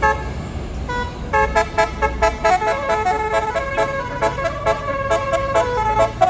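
A bus's basuri 'telolet' multi-tone musical horn playing a fast tune of short notes that jump between pitches, after two short blasts near the start, with the bus engine rumbling underneath.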